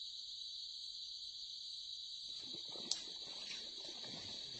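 Insects buzzing steadily at a high pitch. From about halfway, a hooked snakehead thrashes and splashes in the shallow water at the bank, with one sharp click about three seconds in.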